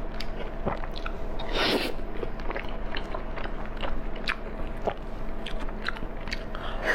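Close-up mukbang eating sounds: a person chewing and biting food with many small irregular mouth clicks, and one louder, longer bite about a second and a half in.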